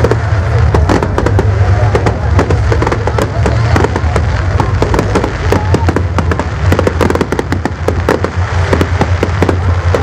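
Fireworks display: rockets and aerial shells bursting in a dense, unbroken run of loud bangs and crackles, many in quick succession.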